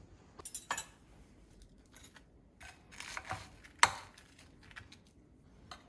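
Metal spoon and fork clinking and scraping against a white bowl of curry and rice, a series of light clicks with one sharper clink a little under four seconds in.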